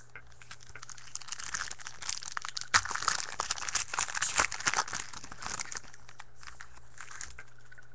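Foil trading card pack wrapper being torn open and crinkled, a dense run of crackling about a second in, loudest in the middle, fading out about six seconds in.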